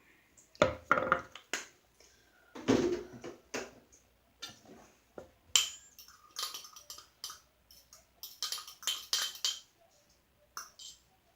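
A utensil clinking, knocking and scraping against a bowl while stirring a slime mixture, in irregular clusters of sharp clicks.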